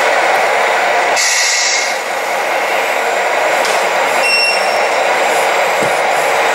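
Scale RC hydraulic excavator working, its hydraulic pump and valves making a steady hiss and whirr. A brief sharper hiss comes about a second in, and a short high beep around four seconds in.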